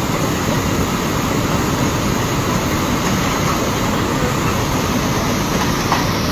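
Steady, loud roar of rushing floodwater, with no break.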